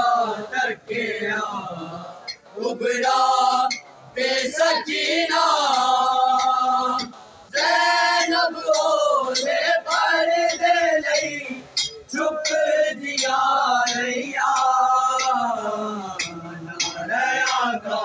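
A group of men chanting a noha, a Shia mourning elegy, together and without instruments. It comes in sung phrases with short breaks between them.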